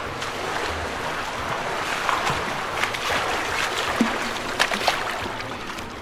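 Toy whale fountain spouting a jet of water that splashes into its plastic basin: a steady splashing with scattered drips.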